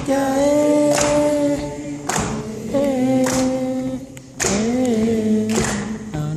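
Audience members singing together in unison, three long held phrases with a slow waver in pitch. A sharp percussive hit sounds about once a second.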